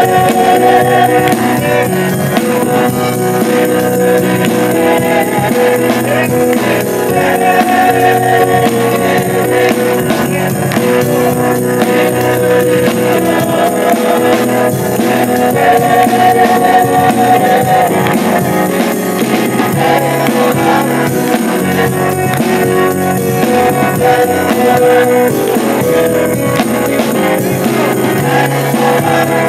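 Live gospel music: a church congregation singing and clapping along with the instruments, steady and loud throughout.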